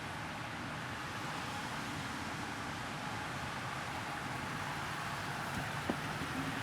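Steady road and traffic noise heard from inside a car driving on a busy highway in the rain, with one brief knock near the end.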